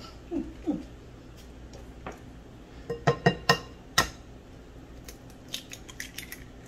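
An egg tapped several times on the rim of a glass mixing bowl: a quick cluster of sharp taps about three seconds in, one louder tap a moment later, then lighter clicks as the shell is broken open.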